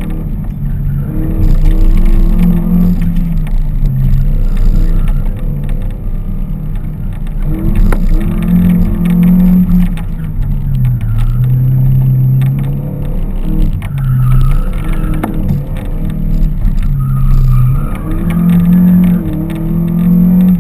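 Car engine heard from inside the cabin, revving up and dropping back again and again as the car is driven hard around a course of cones, over a constant low road rumble.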